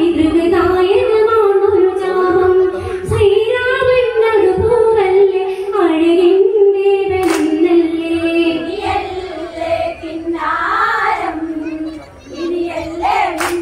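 Female voices singing an Onamkali folk song, a steady sung melody. There is a sharp clap-like hit about seven seconds in and another near the end.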